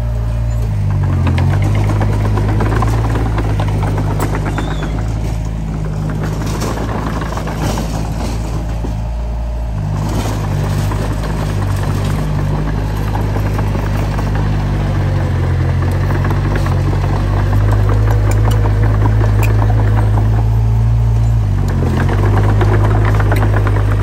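Komatsu D20P bulldozer's diesel engine running with a steady low drone and a rattling clatter. The engine note shifts briefly about a second in, again around ten seconds, and near the end as the load changes.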